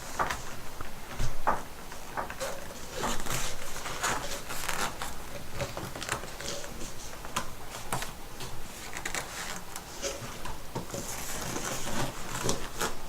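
Large cardboard box being wrestled open by hand: a run of irregular rustles, scrapes and clicks of cardboard and packing, with a louder knock about a second in.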